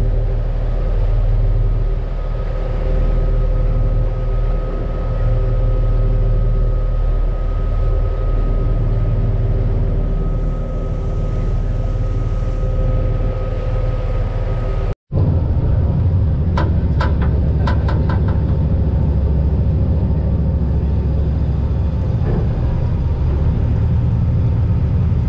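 A large party fishing boat's engines running underway: a steady low rumble with a held whine above it. The sound drops out for an instant about fifteen seconds in, then the engines go on, with a few sharp clicks soon after.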